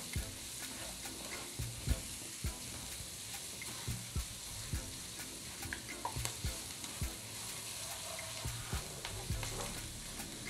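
Diced vegetables sizzling in hot oil in a wok as they are stirred with a silicone spatula, with irregular knocks of the spatula against the pan.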